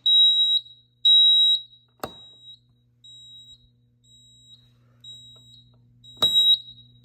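Piezo sounders of a Fire-Lite MS-5024 fire alarm panel and its RZA-5F annunciator sounding a supervisory signal: a high-pitched beep about half a second long, once a second. The beeps drop to a softer level after a click about two seconds in and come back loud after another click near the end, over a steady low hum.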